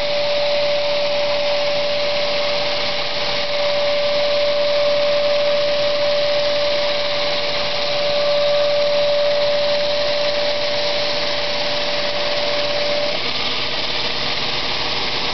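Belt grinder running a coarse 50-grit belt, roughing a forged steel katana blade against the contact wheel: a loud, steady rushing grind. A constant whine runs under it and stops near the end.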